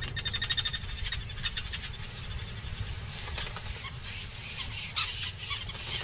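A small animal's call: a rapid, even trill of ticks, strongest in the first second and a half and then fainter, over a low rumble.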